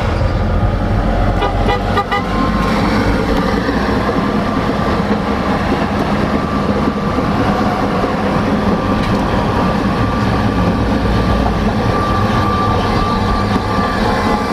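Steady engine and road rumble heard inside a moving car driving alongside a Tatra KT4D tram. A brief run of quick high beeps comes about two seconds in, and a steady high whine runs through the second half.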